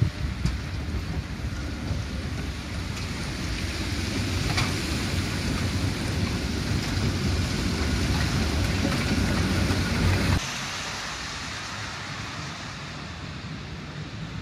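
Low, steady rumble of a tram running on its rails. It builds over about ten seconds, then drops off suddenly to a quieter rumble.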